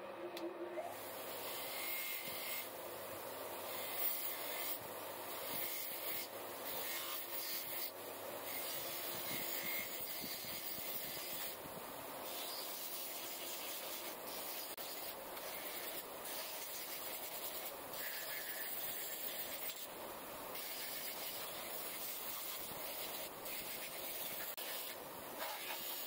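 Wire wheel on a bench grinder spinning, with a metal multi-tool held against it to strip the paint back to bare metal: a continuous scratchy brushing that swells and eases as the tool is pressed and turned.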